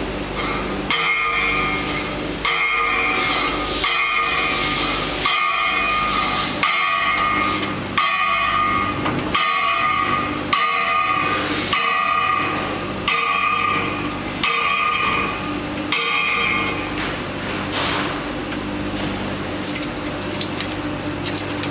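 A metalworking machine runs with a steady hum. Over it, a ringing metallic cycle repeats about every second and a half, about a dozen times, then stops near the end while the hum goes on.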